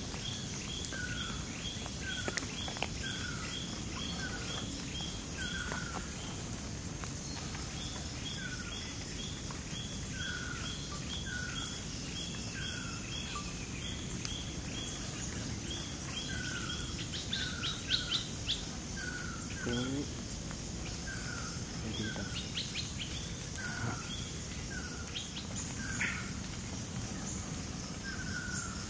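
Forest ambience: a bird repeats short down-slurred whistled notes about once a second, with a second series of higher, shorter notes, over a steady high-pitched insect drone. A few sharp clicks come about two-thirds of the way through.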